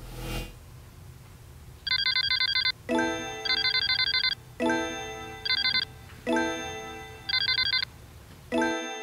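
Electronic sound effects: a rapid, high-pitched ringing trill like a telephone ring, followed each time by a bell-like chime that fades away. The pair comes four times, about every one and a half seconds.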